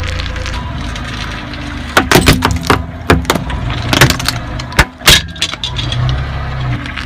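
Slow-rolling car with a low, steady engine hum. About two seconds in, a run of sharp cracks and snaps begins as the tyre crushes a brittle reddish-brown bottle, with more cracks around four and five seconds in.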